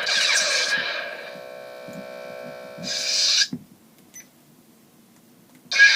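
Teensysaber lightsaber sound effects: an electronic blade hum with falling sweeps that fades away, a short burst about three seconds in, a quiet gap, then the saber's ignition sound starting loudly near the end as the next blade style comes on.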